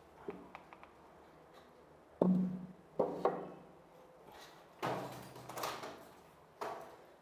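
A pneumatic nail gun firing nails into wooden boards: a series of sharp, irregularly spaced knocks, about seven, some followed by a brief hollow ring from the board.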